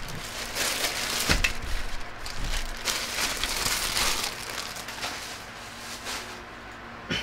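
Items being handled on a table: irregular rustling and crinkling, with a sharp knock about a second in and another near the end.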